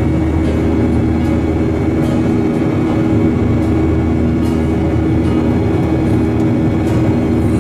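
Steady drone of a jet airliner in flight, heard inside the cabin: engine and airflow noise with a few constant low hum tones, unchanging throughout.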